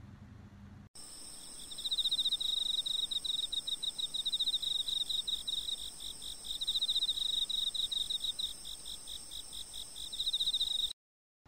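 A composed insect soundscape played back as a sample: insects sing in a rapid, pulsing, cricket-like trill with steady high-pitched chirring above a faint hiss. It starts about a second in and cuts off abruptly near the end. This is the calm, well-balanced sound that one listener created through interactive evolutionary sound composition.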